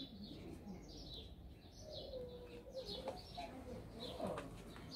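Faint birds chirping and calling in the background, in short scattered calls.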